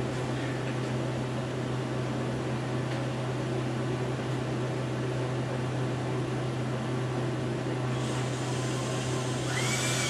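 Cordless drill driving a self-drilling screw into melamine board near the end: the motor whine rises in pitch and then falls. Under it, a steady low hum throughout.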